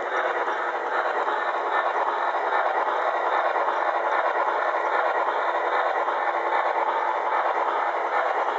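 Model N&W 1218 2-6-6-4 steam locomotive running slowly along layout track: a steady rushing noise with no clear beat.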